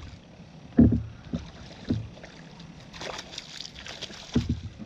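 A hooked crappie splashing at the water's surface beside a boat as it is hauled in, with a spell of spattering splashes about three seconds in. Several dull thumps come before and after the splashing.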